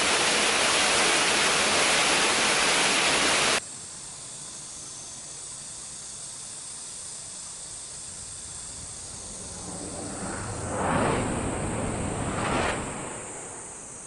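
Waterfall rushing steadily, cutting off abruptly about three and a half seconds in. After it, a much quieter background with a faint steady high hiss, and two swelling whooshes near the end that rise and fade.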